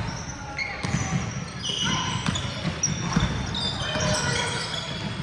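Basketball game sounds in a large hall: a basketball bouncing on the court with one heavy bounce about three seconds in, short high squeaks scattered throughout, and players' voices in the background.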